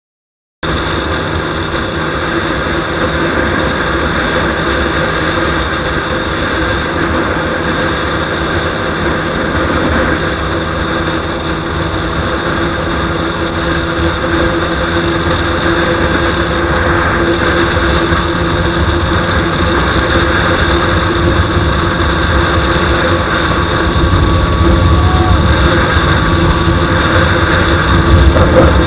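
KTM Duke 125's single-cylinder four-stroke engine running at steady high revs on a top-speed run, under heavy wind noise on the microphone. It cuts in suddenly just after the start and gets a little louder toward the end.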